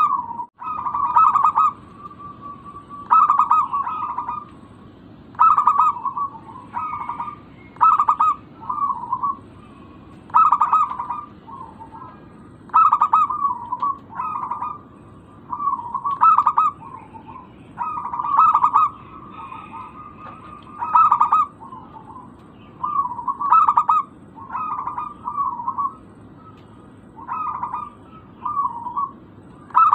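Zebra dove (perkutut) cooing, a short burst of staccato notes every second or two, over a steady low background hum.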